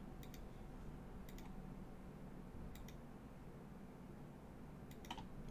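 Faint clicks in close pairs, four times at uneven spacing, over quiet room tone.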